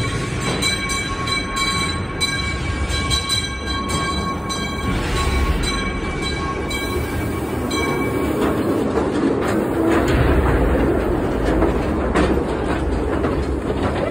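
Calico Mine Train ride cars running along the track, a steady rumble and rattle of wheels on rail. Steady high ringing tones sound over roughly the first half and then fade out, and the rumble grows heavier in the second half.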